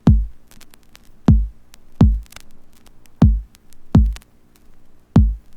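Opening of a tribal house dub track playing from vinyl: a deep electronic kick drum thumping in a sparse, syncopated pattern, six hits in pairs, each dropping in pitch, with light clicky percussion between them.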